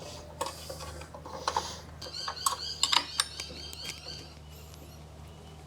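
Metal clinks and taps from a saw blade and tools being handled during a blade change, a cluster of short ringing knocks in the first half that then dies down.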